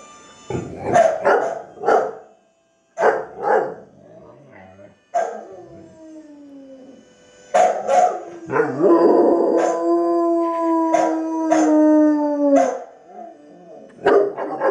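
Rottweiler barking and yelping in short outbursts, then one long howl, slightly falling in pitch, that holds for about four seconds past the middle with sharp barks breaking in over it. Another bark comes near the end.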